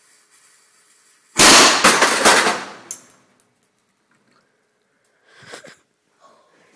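Homemade mini cannon going off: one sharp, loud bang about a second and a half in, followed at once by a quick run of further cracks that die away within about a second and a half.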